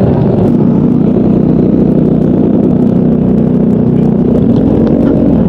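Yamaha Mio Gravis scooter's 125 cc engine running steadily under throttle while riding through soft sand. Its pitch rises a little about four seconds in and drops back near the end.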